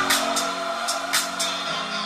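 Recorded music playing from loudspeakers driven by a Marantz PM-80 integrated amplifier, with held tones and crisp cymbal hits. The heavy bass drops away right at the start.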